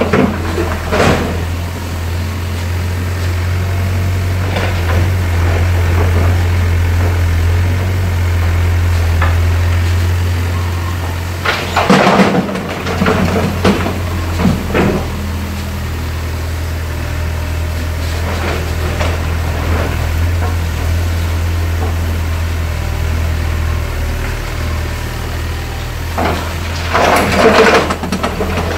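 Volvo EW60C wheeled excavator's diesel engine running steadily, with loud crashes and knocks of demolition rubble about halfway through and again near the end.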